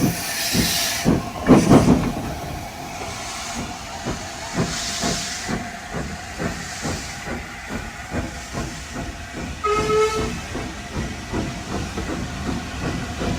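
A moving train with its wheels knocking in a steady rhythm over the rails and a running rumble. Several bursts of hissing come near the start and a few seconds later, and a brief tone sounds about ten seconds in.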